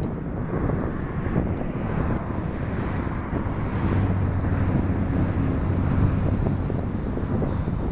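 Twin Rolls-Royce Trent XWB turbofans of an Airbus A350-1000 at takeoff thrust, running as a steady jet rumble heard from behind the aircraft on its takeoff roll. Wind buffets the microphone, and a low steady hum joins about four seconds in.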